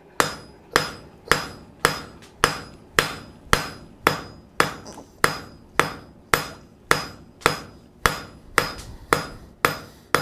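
Blacksmith's hand hammer striking a hot 3/8-inch mild steel bar on an anvil to draw out a taper. The blows come steadily at about two a second, and each leaves a short ring from the anvil.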